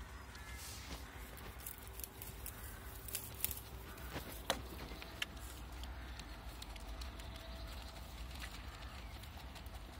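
Hampshire Down ram lambs eating pellets from a feed trough: irregular crunching and sharp clicks as they chew and their muzzles knock the trough, busiest in the first half. A steady low rumble runs underneath.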